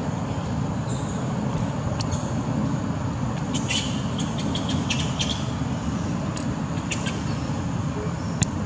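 Steady low rumbling background noise with scattered faint clicks and ticks, a small cluster of them about four seconds in.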